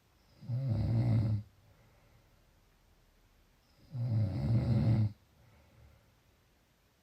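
Snoring: two low-pitched snores, each about a second long, about three and a half seconds apart, with quiet breathing between them.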